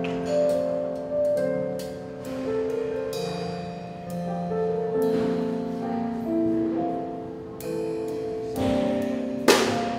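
Live band playing an instrumental passage: keyboard and acoustic guitar holding slow, sustained chords, with a few loud percussive hits near the end.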